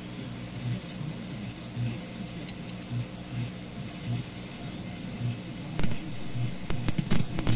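Steady low electrical hum from a powered-up vacuum-tube receiver and amplifier, swelling and fading about once a second, with a thin high whine over it. A few sharp clicks come near the end.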